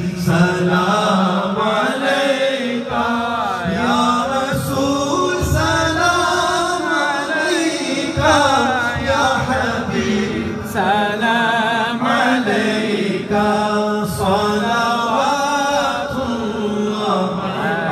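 A man's voice singing an Islamic devotional naat (a salaam to the Prophet) through a microphone, in long wavering melismatic phrases.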